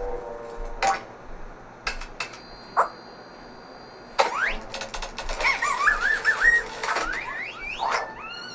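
Cartoon sound effects: scattered sharp clicks and a short high beep, then from about halfway in, rising whistle-like glides and warbling tones over quick clicking.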